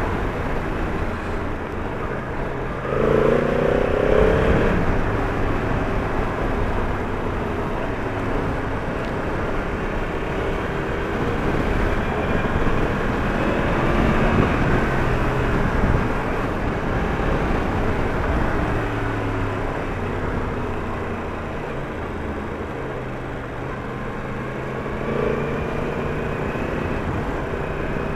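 Yamaha MT-10's crossplane inline-four engine running on the move under a steady rush of wind noise. Its pitch rises and falls with the throttle and gear changes, with louder pulls about three seconds in and again midway.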